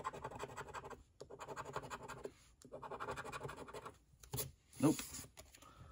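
A coin scratching the coating off a paper scratch-off lottery ticket on a table, in three bouts of about a second each. Two short, louder sounds follow a little before the end.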